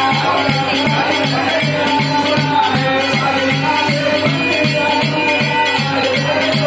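Loud folk music with a steady beat of about three strokes a second and jingling, rattle-like percussion shaking in time.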